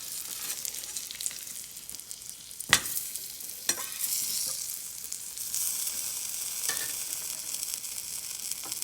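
Flour-coated frog legs sizzling and crackling in hot butter in a frying pan, with a few sharp pops, the loudest about three seconds in. The sizzle grows louder about four seconds in.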